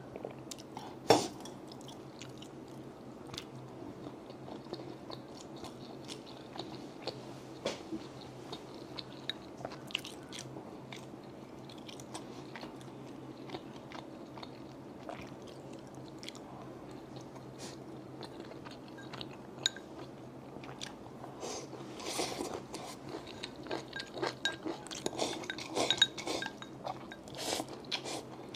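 Close-miked eating: chewing and crunching of food with scattered sharp mouth and bite clicks over a steady low hum. One loud click comes about a second in, and the chewing grows busier and louder in the last several seconds.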